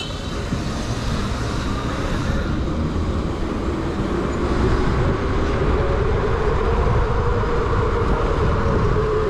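Steady wind and road rumble of riding an electric bike at speed. About halfway in, a faint whine comes in and dips slightly in pitch near the end.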